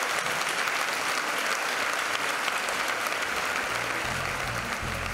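A large audience applauding steadily. Music with low bass notes starts to come in about four seconds in.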